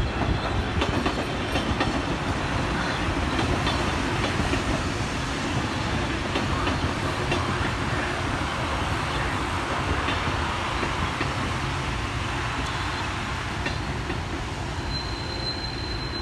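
Long Island Rail Road electric multiple-unit commuter train passing, a steady rumble of wheels on rail with faint rail-joint clicks. A thin high squeal comes in near the end.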